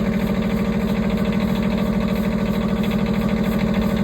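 Wood-Mizer LT15 Wide sawmill's engine running steadily at an even, fast pulse.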